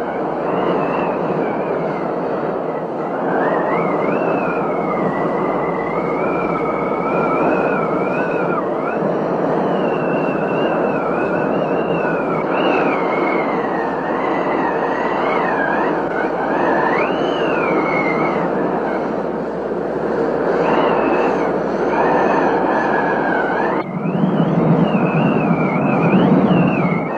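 Storm noise of heavy rain and wind, with wavering whistle-like tones sliding up and down over it. The sound changes abruptly near the end.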